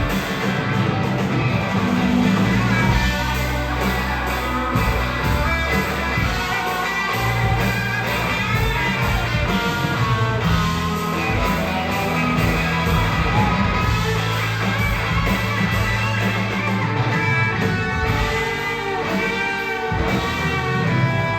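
Instrumental rock-style music led by guitar over a steady bass line.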